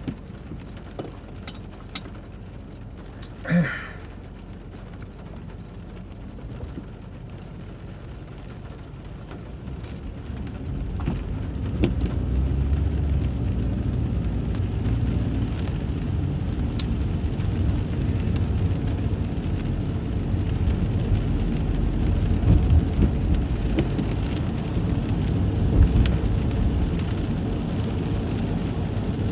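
Rain and passing traffic heard through a car window opened a little, with a few short clicks early on. About eleven seconds in, a low rumble of road and engine noise swells up and stays loud.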